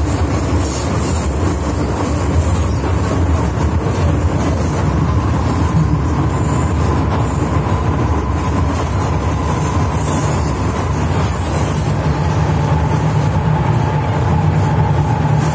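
MTR M-Train electric multiple unit heard from inside the carriage, running through a tunnel: a loud, steady rumble of wheels and running gear with a faint whine on top. The low rumble grows heavier in the last few seconds.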